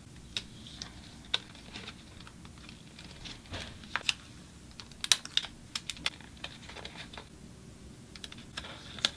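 Scattered light clicks and taps at irregular intervals as tape is pulled from a small plastic tape dispenser and pressed down with the fingers onto a folded paper strip.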